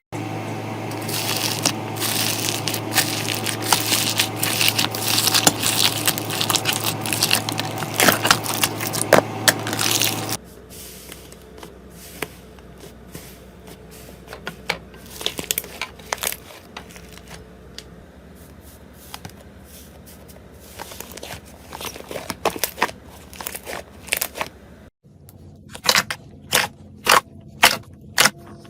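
Slime being squeezed and pressed by hand, crackling and crunching densely for about the first ten seconds. It then drops to quieter, scattered pops and clicks, and ends with a run of sharp pops, two or three a second.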